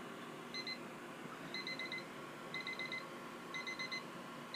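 Weather station's refrigerator temperature alarm beeping: clusters of about four quick high beeps, repeating about once a second. It is going off because the RV refrigerator has dropped to freezing, 32.3 degrees inside.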